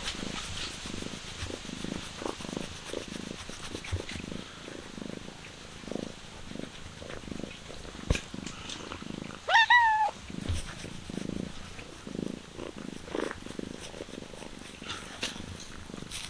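A tabby-and-white cat purring in a steady rhythm while a gloved hand strokes it, with one short rising meow about ten seconds in.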